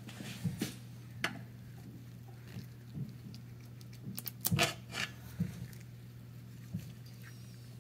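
Scattered light metallic clicks and clinks of a hand tool working on the AC Ace engine's aluminium main bearing caps and their studs, with a short run of sharper clinks about halfway through, over a steady low hum.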